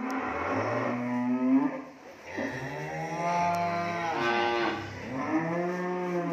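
Cattle mooing: three long moos one after another, with a second animal's call overlapping the middle one.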